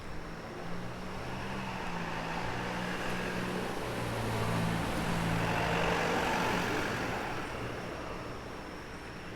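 A motor vehicle passing on the street: its engine hum and tyre noise build up, are loudest about six seconds in, then fade away.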